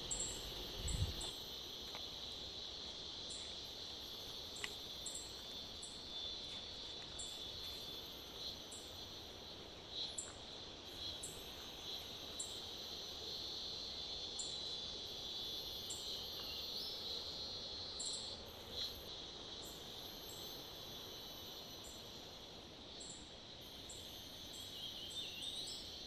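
Faint forest insect chorus: a steady high buzzing trill, with separate short, very high chirps repeating about once a second. A brief low thump about a second in.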